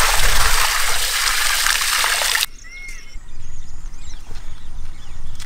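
Water poured in a steady stream from a bowl into a large metal cooking pot, splashing loudly, then stopping abruptly about two and a half seconds in.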